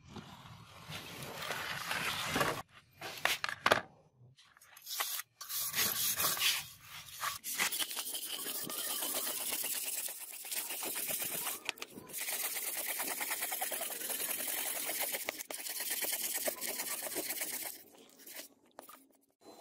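Steel wire brush scrubbing the rusty steel blade of a handmade butcher's chopper: long runs of rapid rasping scrapes with short breaks between them. A few sharp knocks sound a few seconds in.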